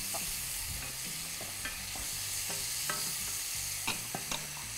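Halved cherry tomatoes sizzling steadily in olive oil in a stainless steel sauté pan, stirred with a wooden spoon that knocks against the pan a few times.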